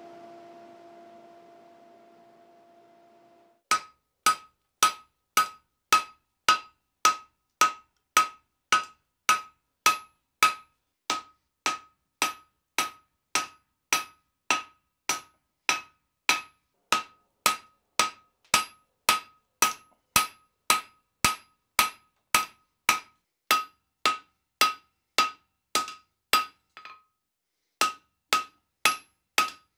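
Hand hammer forging a hot bar of 5160 steel on an anvil, squaring the round bar into a rectangular section. The blows start about four seconds in and fall steadily, about two a second, each with a bright metallic ring. They pause briefly near the end, then resume.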